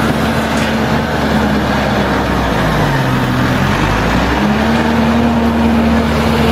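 Caterpillar 434F backhoe loader's diesel engine running loud and close; its revs sag for about a second and a half midway, then climb back.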